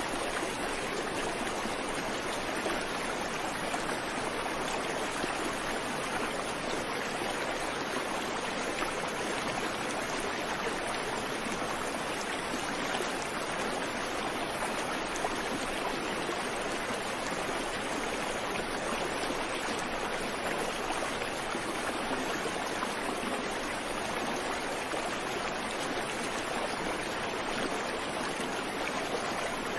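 Creek water running steadily over stones, a continuous rushing and babbling with no birds.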